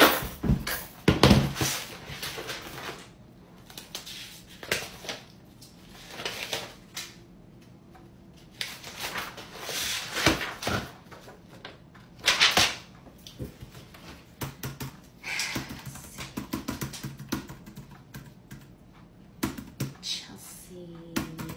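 Paper handling at a desk: sheets rustling and a file folder being flipped through, with a few knocks against the desktop. In the second half it gives way to quick, uneven clicking of typing on a computer keyboard.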